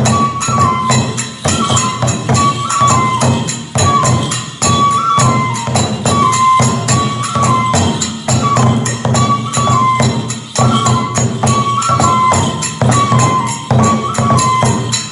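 Kagura festival music: a bamboo transverse flute repeats a short falling phrase over a quick, steady beat of drum strokes and small hand cymbals.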